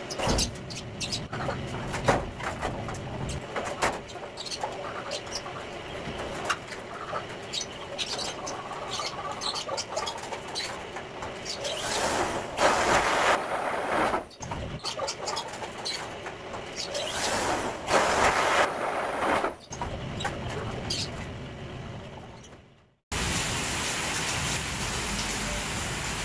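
Metalwork on a steel-framed cage with corrugated sheet panels: scattered knocks and rattles, with two bursts of a handheld power drill boring into the metal, each about two seconds long. Near the end it switches abruptly to the steady hiss of heavy rain.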